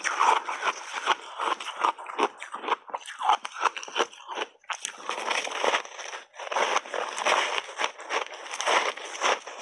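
Crunchy ice chunks dusted with matcha powder being bitten and chewed close to a clip-on microphone: dense, rapid crunching, with brief pauses about four and a half and six seconds in.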